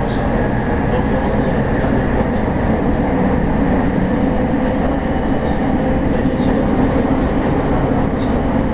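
Interior running noise of a Tokyo Waterfront Area Rapid Transit 70-000 series car with its original, unrenewed VVVF traction equipment: a steady rumble of wheels on rail and traction motors.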